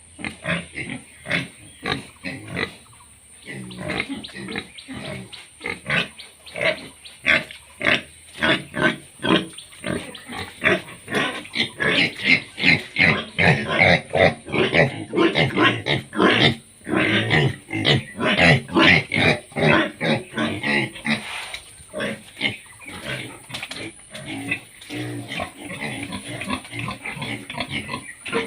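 Pigs grunting in rapid, overlapping calls, several a second, loudest in the middle and easing off near the end.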